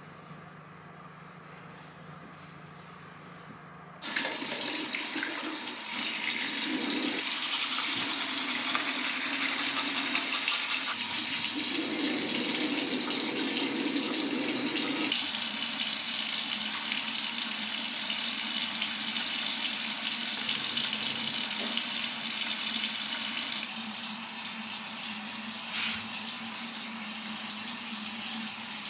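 Water running from a tap into a sink: it comes on suddenly about four seconds in and runs steadily, its sound shifting now and then as the stream is disturbed, and it drops slightly in level near the end.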